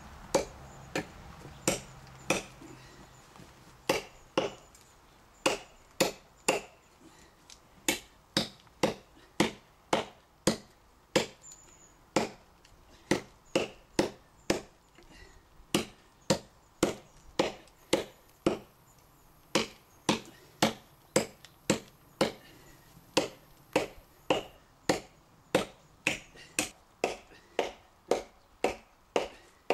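Cold Steel Trail Hawk tomahawk chopping into a hard seasoned elm log: a steady run of sharp chops, roughly two a second, with a few short gaps in the first seconds.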